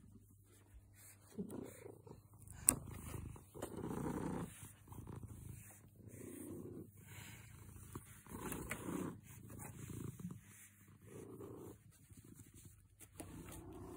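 A domestic tabby cat purring while being stroked, the purr coming in repeated swells every second or two. One sharp click about three seconds in.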